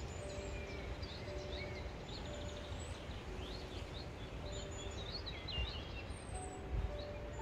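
Several small birds chirping and singing in short, quick phrases over a steady low outdoor rumble.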